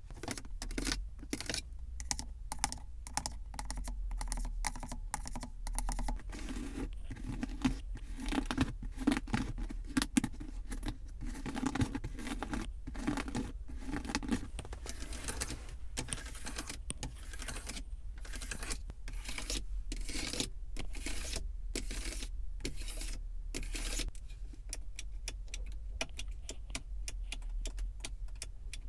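Fast, irregular tapping on a car's surfaces, dense runs of sharp clicks with short pauses between them.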